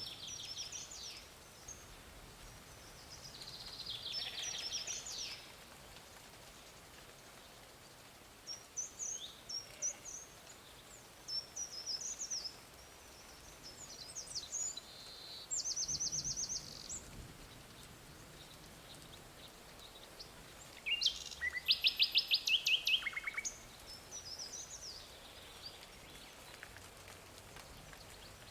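Several songbirds singing and calling, with scattered chirps and quick trills. The loudest is a fast, rapid trill about three quarters of the way through.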